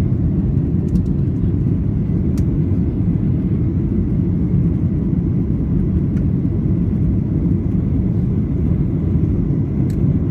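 Steady low rumble of airliner cabin noise, jet engines and rushing air heard from inside the cabin at a window seat, with a few faint clicks.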